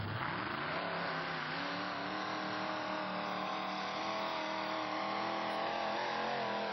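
Mud bog truck's engine revving hard on tractor tyres: the pitch climbs over the first second or so, then holds at high revs, wavering slightly, as the truck is driven through the mud pit.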